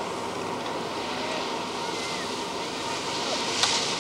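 Steady rushing wind on a camcorder microphone, with one sharp click about three and a half seconds in.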